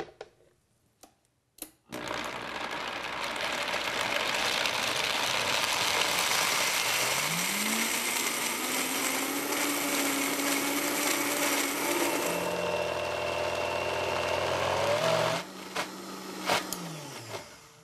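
Countertop blender starting about two seconds in and running for some thirteen seconds, grinding cashews, lemon juice and honey into a thick, smooth cream. Its motor pitch rises partway through. Near the end it is switched off with a click and winds down.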